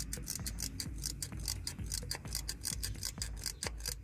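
Hand oil pump being worked to push new gear oil through a hose into a BMW Z4 E85 rear differential, making a rapid, even clicking of about six clicks a second.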